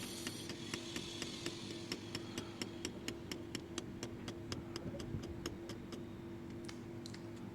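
Light, even tapping, about five taps a second, over a faint steady hum.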